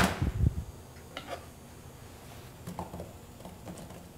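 Apple corer-slicer being pushed down through apples over an aluminium saucepan: a sharp knock right at the start and a few dull thuds, then scattered light clicks and taps as the slices are handled into the pan.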